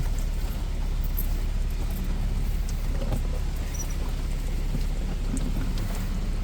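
Car engine idling steadily, heard from inside the cabin, with heavy rain falling on the car.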